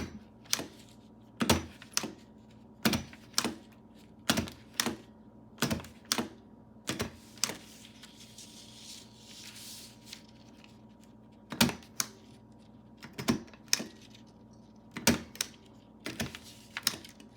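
An old vintage stapler worked over and over, each stroke a sharp pair of clicks about half a second apart: the press and the spring return. There is a pause with a soft rustle about halfway through before the strokes resume.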